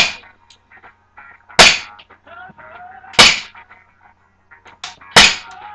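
Smith & Wesson Sigma airsoft pistol fired four times, one shot about every one and a half seconds, each a sharp crack as the BB strikes a polycarbonate shield.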